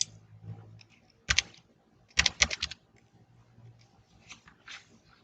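Typing on a laptop keyboard: a few separate key clicks, then a quick run of several keystrokes about two seconds in, and a couple of faint taps near the end.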